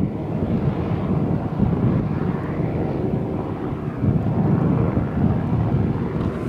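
Shelest hovercraft under way, its engine and caged rear propeller running steadily.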